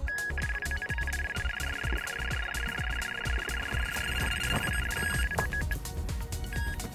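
Electronic carp bite alarm sounding a fast run of beeps for about five seconds, then a few single beeps near the end, over background music: a fish has picked up the bait and is taking line.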